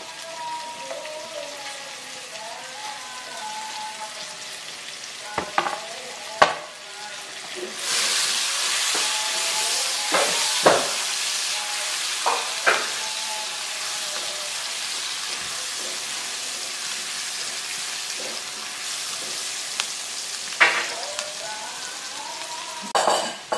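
Sliced shallots and garlic sautéing in melted margarine in a nonstick wok until fragrant. The frying starts as a quiet sizzle and becomes a loud, steady sizzle about eight seconds in. A spatula clicks against the pan now and then.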